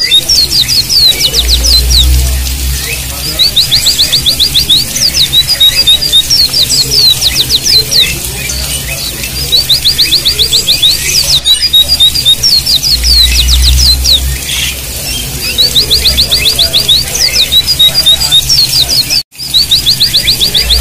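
White-eyes (pleci) singing in repeated phrases: fast runs of short evenly spaced notes alternating with down-sweeping whistled notes, over a steady hiss of running water. A low rumble swells briefly twice.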